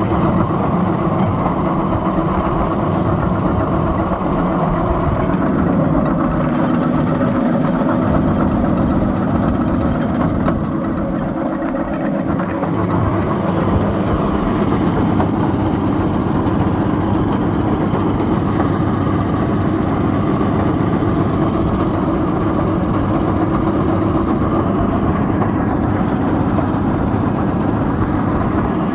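Small engine of a motorized railcart running steadily as the cart rolls along the rails under way.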